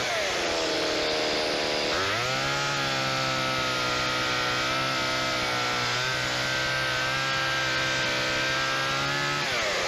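Two-stroke gasoline chainsaw revved up sharply about two seconds in and held at high revs for about seven seconds, then dropping back toward idle near the end.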